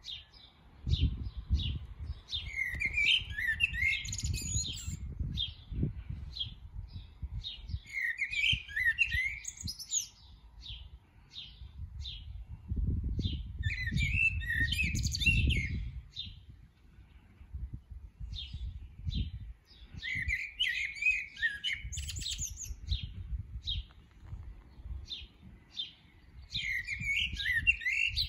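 Eurasian blackbird singing: a warbled phrase about every five to six seconds, with short high notes between the phrases. A low rumble sits underneath.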